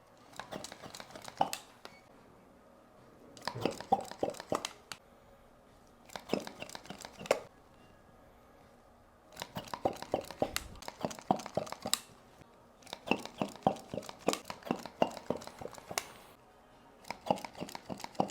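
Hands massaging a person's back, rubbing and crinkling against clothing or the treatment table in about six short bouts of one to two seconds each, with quiet pauses between them.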